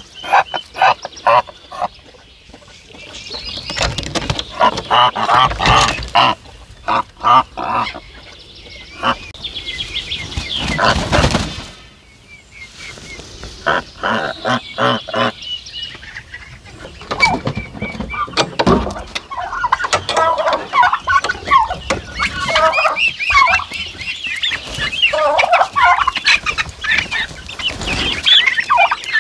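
Farmyard poultry calling: a domestic goose honking, then turkeys gobbling and birds clucking in a dense run of calls over the last third.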